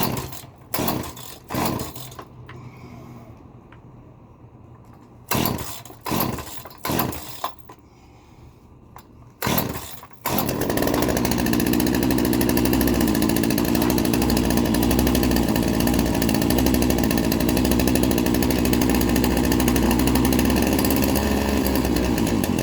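Old Craftsman 42cc two-stroke chainsaw being started: seven brief starting attempts, in two sets of three and one more, then the engine catches about ten seconds in. It runs steadily for about twelve seconds and stops abruptly near the end. The owner suspects the carburettor needs cleaning and the spark plug replacing.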